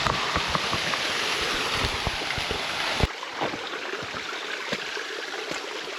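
Steady rush of falling water from a waterfall, breaking off abruptly about three seconds in to a thinner, quieter rush with less low rumble.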